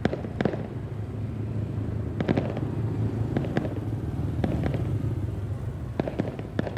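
Fireworks going off at a public New Year's display: a dozen or so sharp bangs and pops at irregular intervals over a steady low rumble.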